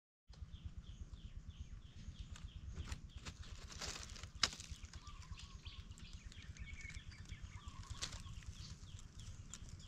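Outdoor ambience: a low, fast fluttering rumble under a high, short falling chirp that repeats several times a second. A sharp click stands out about four and a half seconds in.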